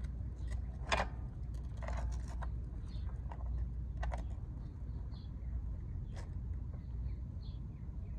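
A few sharp clicks and clinks, scattered a second or two apart, from hands working a dirt bike's drive chain back onto its sprockets, over a steady low rumble.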